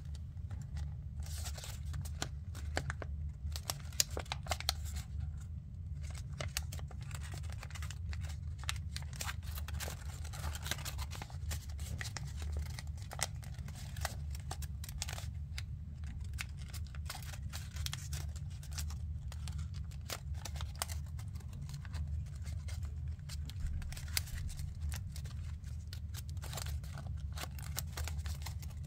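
Origami paper crinkling and crackling as fingers fold, crease and press the layered sheet, with many small, crisp crackles throughout. A steady low hum runs underneath.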